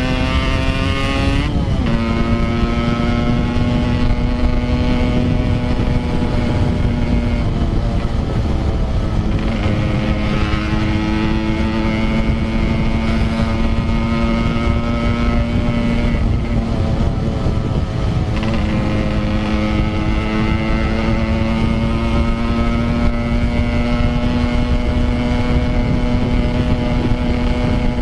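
Yamaha RX-King 135cc two-stroke single-cylinder engine pulling while riding. Its note climbs and drops several times as it goes through the gears, over a heavy rumble of wind on the microphone.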